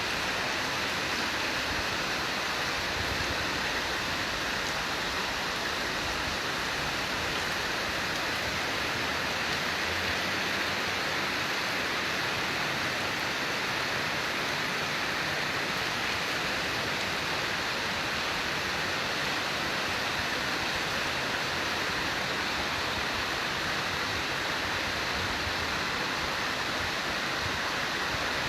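Heavy tropical rain falling in a steady, even downpour hiss.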